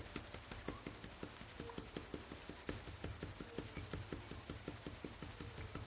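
Faint, rapid, even clicking, about six clicks a second, over a low hum.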